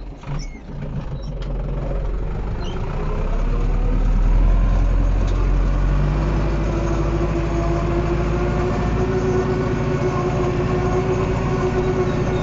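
Tractor engine heard from inside the cab as the tractor pulls away across the field, getting louder over the first few seconds and then running steadily under load with a steady hum. A few short knocks come near the start.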